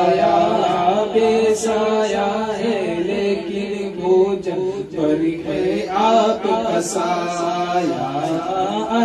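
A man singing a naat into a microphone, in long, wavering held lines over a steady low drone.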